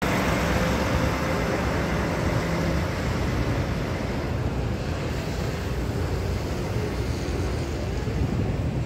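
Diesel intercity motor coach driving past and pulling away. Its engine hum fades after about three seconds, leaving a steady low rumble.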